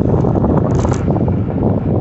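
Wind buffeting the microphone of a moving electric bicycle, a loud rough rumble with road noise underneath, and a brief high crackle a little under a second in.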